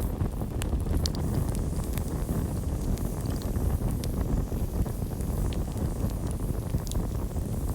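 Campfire burning: a steady low rumble of flames with scattered sharp crackles and pops from the burning wood.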